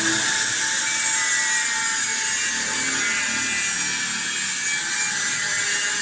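A power tool running steadily on a metal cylinder head, a hissing high-pitched whine.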